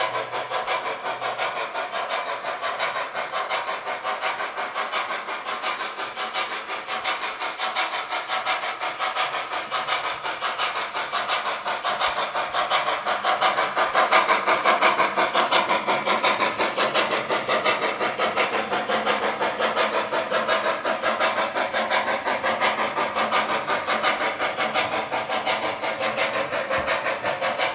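Bachmann J11 00-gauge model steam locomotive's DCC sound decoder playing rapid, even steam exhaust chuffs with hiss, a little louder around the middle.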